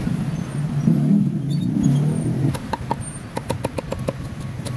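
A low engine rumble of passing traffic, which fades after about two and a half seconds. Then comes a quick run of about a dozen sharp knocks, several a second.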